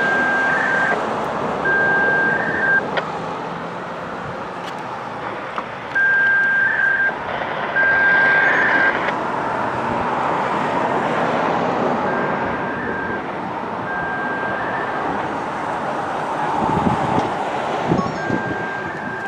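An electronic warning beeper sounding pairs of steady, high, one-second beeps, a pair about every six seconds, over the steady noise of passing traffic.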